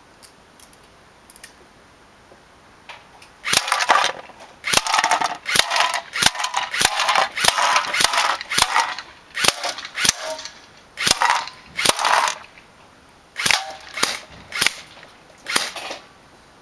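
ASG MP5A5 airsoft gun firing in short bursts of rapid shots, about a dozen bursts with brief pauses between them, starting a few seconds in after some faint clicks.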